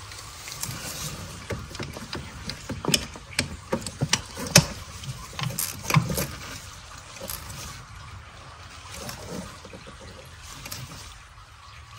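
Hand ratchet on a socket extension clicking in short irregular runs as a new spark plug is snugged down into the cylinder head. The clicks are dense at first and thin out after about six seconds.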